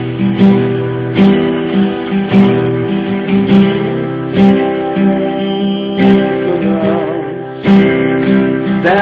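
Acoustic guitar strummed in a steady chord pattern.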